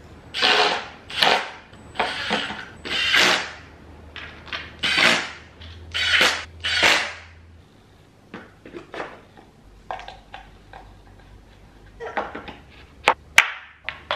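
Handling noises from assembling flat-pack furniture by hand: a run of short rustling bursts, then lighter scrapes and taps, ending with two sharp clicks as pieces are pushed onto wooden dowels.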